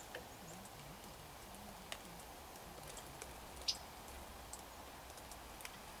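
Faint steady outdoor background with a few scattered sharp ticks, the loudest about two-thirds of the way through.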